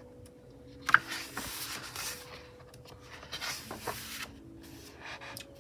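Pages of a K-pop album photobook being handled and turned by hand: soft paper rustling and rubbing, with one sharper paper snap about a second in.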